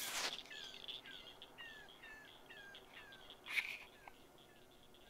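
Repeated short falling chirps, about two a second and slowly fading, over a steady high insect trill. A brief rush of noise cuts in at the start and again about three and a half seconds in.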